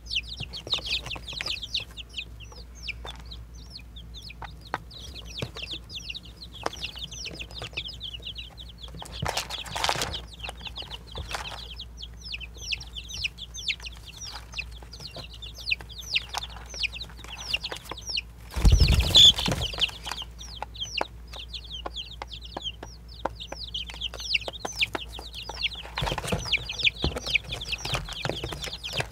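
Baby chickens peeping continuously, a dense run of short, high, falling chirps from several chicks at once. Scattered clicks and scratches are heard throughout, with one louder thump about two-thirds of the way through.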